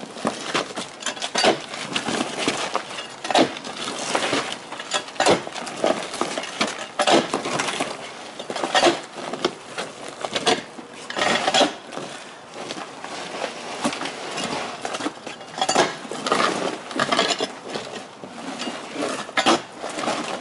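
Loose roofing gravel crunching and clinking as a layer of old gravel-covered roofing is peeled up and rolled over, with boots scuffing on the gravel. The crackling comes as a dense, irregular run of sharp crunches.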